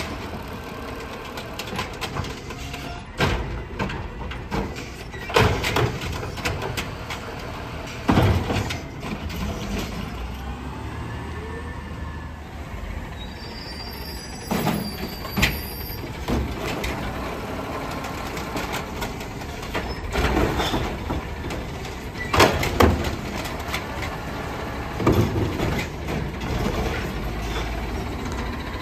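Automated side-loader garbage trucks running at the curb, with a series of loud bangs and clanks every few seconds as carts are lifted and dumped by the arm.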